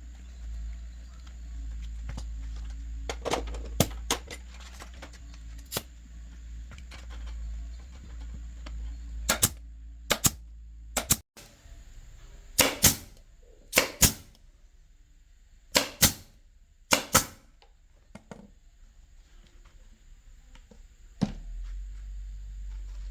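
A series of sharp clicks and knocks, some in quick pairs, over a low steady hum that cuts off abruptly about halfway through and comes back near the end.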